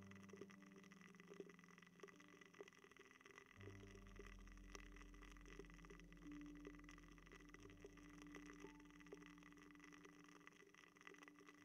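Faint ASMR ear-cleaning sounds close to the microphone: many soft, scattered clicks and crackles, over low steady tones that change pitch a few times.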